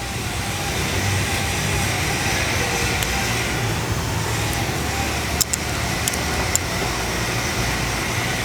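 Steel ball bearings being drawn out of a hose-loader swivel with a magnet: a few light, sharp metallic clicks, two close together about five and a half seconds in. Under them runs a steady background hum.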